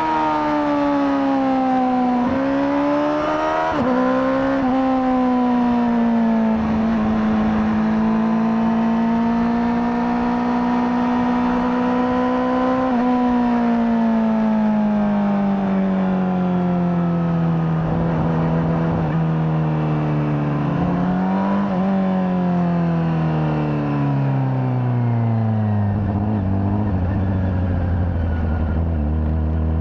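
Honda CBR600RR's inline-four engine on the stock exhaust, ridden along. It holds a steady pitch for several seconds, then the revs fall away with short rises in between, and near the end it settles to a low, even run.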